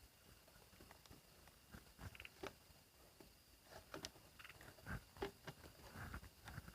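Near silence: a few faint scattered clicks and short rustles, the clearest about four and five seconds in, over a faint steady high-pitched hum.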